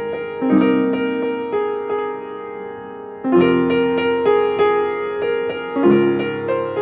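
Background piano music playing gentle sustained chords and notes.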